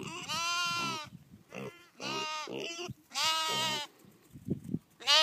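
Lambs bleating, four or five separate calls of under a second each, each with a wavering pitch.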